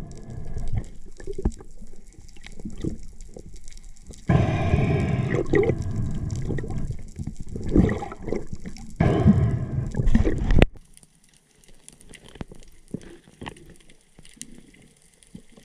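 Underwater water noise on a submerged camera: rough, low rumbling and gurgling with scattered knocks, loudest in the middle stretch, then cutting off abruptly to a faint hiss with light ticks.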